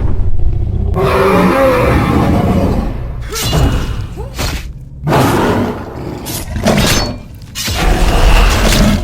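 Layered fantasy-fight sound effects: a low rumble under crashing, breaking impacts, dropping out briefly about three and five seconds in.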